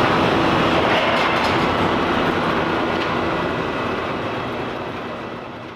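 2022 Toyota Tundra's twin-turbo V6 running through a cut-and-clamp mid-muffler replacement exhaust: a steady rumble of the truck under way that fades out over the last couple of seconds.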